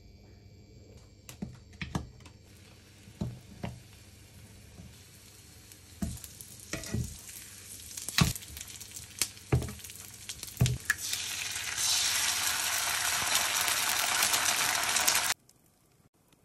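Bagels and hash browns frying in an oiled nonstick frying pan: a dozen light knocks as the food and metal tongs touch the pan, over a sizzle that grows and turns loud and steady about twelve seconds in, then cuts off suddenly near the end.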